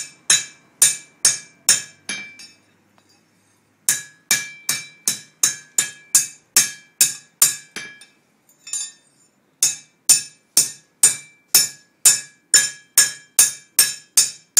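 Blacksmith's hammer striking an anvil in three runs of evenly paced blows, a little over two a second, each blow ringing briefly with a bright metallic tone. There is a short pause after about two seconds and another near the middle.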